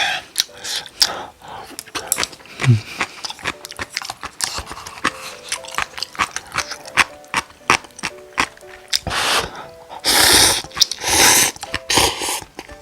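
Close-miked eating of cup noodles: wet chewing clicks throughout, then three loud noodle slurps about nine, ten and eleven seconds in.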